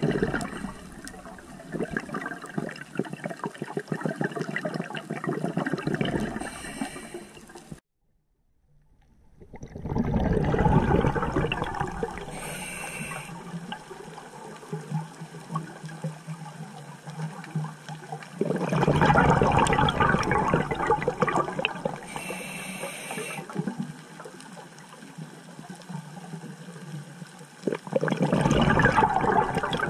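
Scuba diver breathing through a regulator underwater: long gurgling bursts of exhaled bubbles, each followed by a short hiss of inhalation, in a slow repeating cycle. The sound cuts out for a moment about a quarter of the way in.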